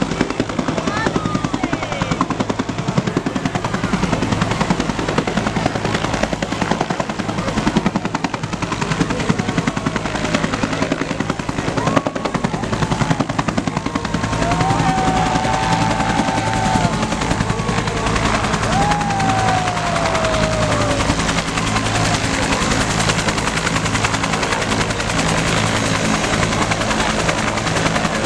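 Bell UH-1 Huey helicopter flying close by: the rotor blades beat rapidly and steadily over a low engine hum throughout, a little louder from about halfway in.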